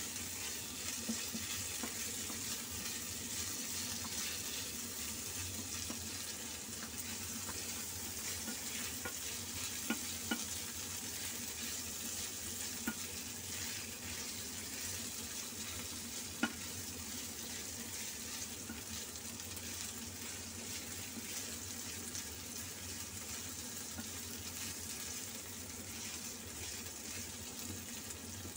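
Sliced meat and vegetables sizzling steadily as they stir-fry in a nonstick wok, with a wooden spatula scraping and stirring through them and tapping the pan sharply a few times.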